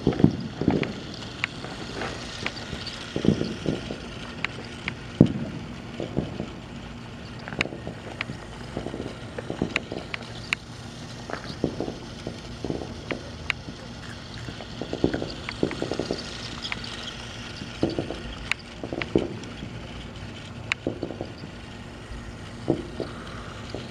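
A battery-powered Thomas & Friends Trackmaster toy train running around its plastic track, its motor whirring, with many short sharp clicks scattered throughout.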